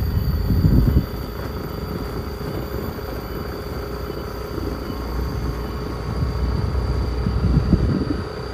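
Motorbike engine running steadily while riding, with wind rumbling on the microphone in gusts, loudest about half a second to a second in.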